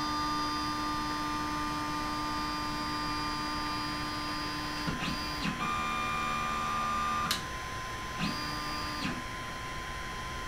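Ender 3 Max 3D printer auto-homing: its stepper motors whine in steady tones, with the pitch sliding down and up as the axes slow, stop and start again. A sharp click comes about seven seconds in.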